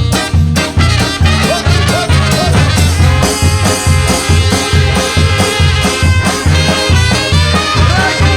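Brass band playing an instrumental passage: horns in several layers over a low bass line pulsing about twice a second, in a swinging, ska-like groove.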